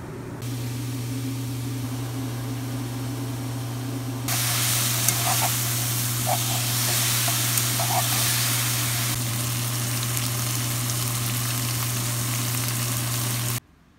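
A microwave oven running with a steady low hum. After about four seconds, food starts sizzling loudly in a hot oiled frying pan: enoki mushrooms stirred with chopsticks, which give a few light knocks, then kimchi frying. The sizzle cuts off abruptly near the end.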